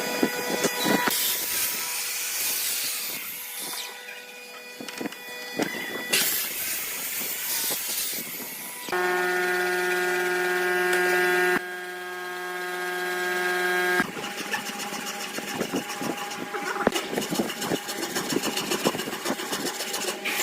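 Electric woodworking power tools running in short clips joined by hard cuts. A motor whines at a steady pitch for a few seconds in the middle, and the other stretches hold the rushing noise of cutting or sanding wood.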